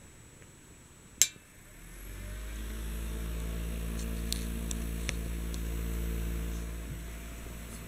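Small metal-mesh desk fan switched on with a sharp click of its one-speed on/off switch, then its electric motor hums and the blades spin up within about a second to a steady whir. A few light ticks come through the hum.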